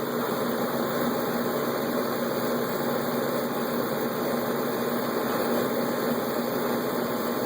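A steady mechanical hum with a constant low drone and a hiss, unchanging throughout.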